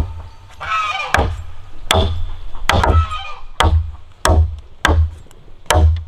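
Machete chopping into a log lying on the ground: a steady series of about eight strikes, roughly one every three-quarters of a second, each a sharp knock with a dull thud.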